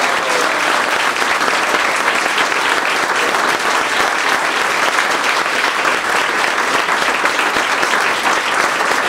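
Audience applauding steadily, a dense, unbroken clapping.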